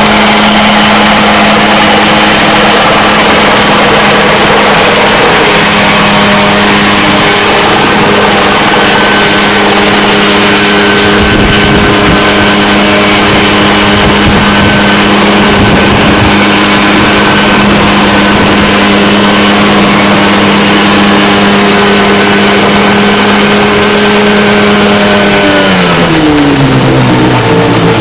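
Mosquito XE microlight helicopter hovering close by, its engine and rotor running at a steady pitch. Near the end, as it settles onto the pad, the engine note falls quickly to a lower pitch.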